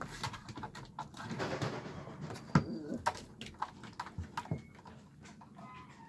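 Puppies playing, with low grumbling growls and whines, scattered clicks and knocks, and one sharp knock about two and a half seconds in. It quiets down near the end.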